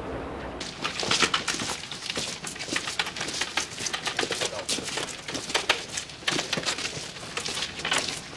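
Footsteps of several people walking on cobblestones, a dense run of irregular clicks and scuffs. A low steady rumble cuts off about half a second in.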